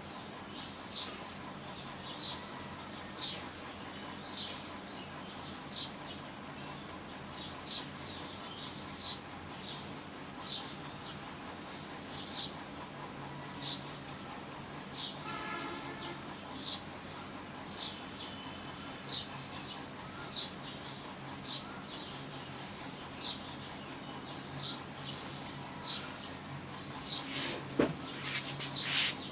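Colour pencil strokes scratching on paper, a short stroke about every second, with a quick run of louder strokes near the end. A high, even chirping pulse runs behind them.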